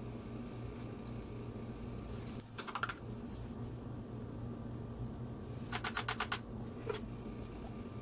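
Two quick runs of light, sharp clicking taps, the first between two and three seconds in and the second about six seconds in, followed by a single click. They come as the stainless steel catch cup of a coffee grinder is handled, over a steady low hum.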